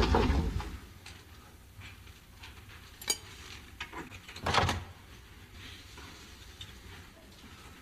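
Quiet room sound with a sharp click about three seconds in and a louder, short thump about a second and a half later.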